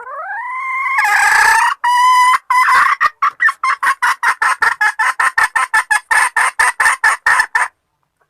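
Junglefowl hen calling, the call the title gives as a mating solicitation: a rising drawn-out note, a harsh squawk, then a run of quick clucks at about four a second that stops suddenly near the end.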